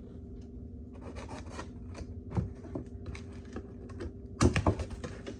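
Scissors scraping and cutting through packing tape on a cardboard box: a run of small scratchy clicks and scrapes, then a louder burst of rustling and scraping near the end.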